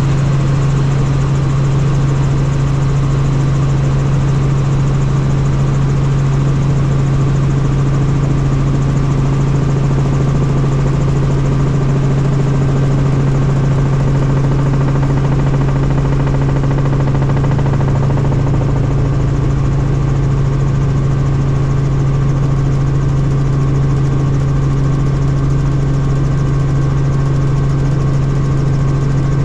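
Helicopter in steady flight: its turbine engine and rotors make a loud, even drone over a strong low hum.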